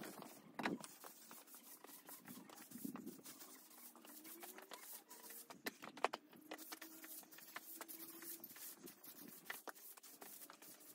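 Straw broom sweeping concrete steps: faint, scratchy strokes with scattered knocks, the sharpest knock about six seconds in. A faint drawn-out tone rises and then holds for a couple of seconds around the middle.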